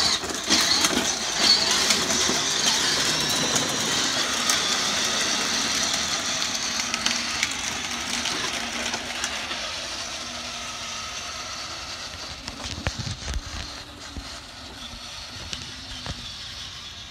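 Battery-powered ride-on toy jeep driving off: its electric drive whines and its plastic wheels roll over the ground. The sound starts suddenly and fades gradually as the jeep moves away.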